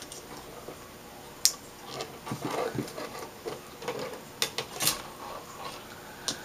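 Thin metal LED backlight strips being handled on an LCD panel's sheet-metal back: soft scraping with a few sharp clicks, the loudest about five seconds in.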